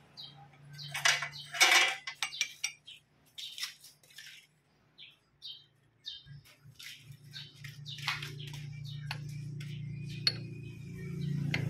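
Metal clinks and clicks as a propeller-shaft universal-joint yoke is handled and seated in a lathe's four-jaw chuck, then a steady low hum of the lathe from about halfway through, growing louder near the end.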